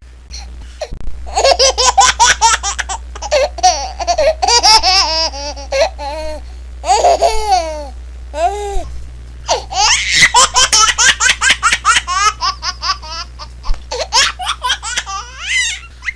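A baby laughing hard in rapid runs of short giggles, with two brief pauses for breath before starting again.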